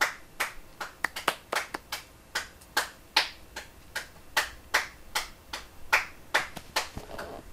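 Hands clapping in a steady run, about three sharp claps a second.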